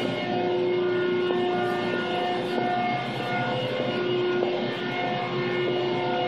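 Hydraulic press brake running, its hydraulic pump giving a steady hum with whining tones that shift in pitch every second or so.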